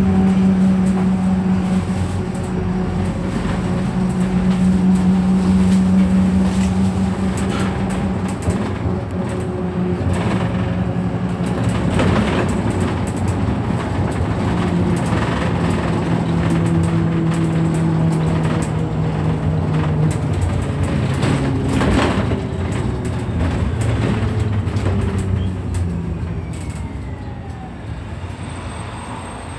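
Wright Pulsar-bodied VDL SB200 single-deck bus heard from inside the saloon while driving: a steady engine and gearbox drone whose pitch holds, then shifts down in steps, with sharp interior rattles over bumps. The uploader describes the bus as limping, with bits of gearbox kickdown. It eases off and quietens near the end.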